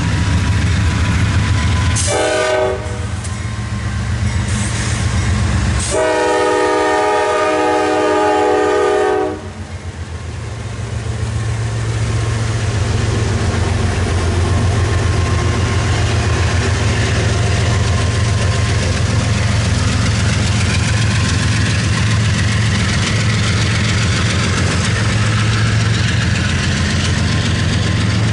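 Freight train's diesel locomotive horn sounding several tones at once: a short blast about two seconds in, then a long blast of about three seconds. Then the locomotives' engines and the train's wheels on the rails make a steady rumble as the train passes close by.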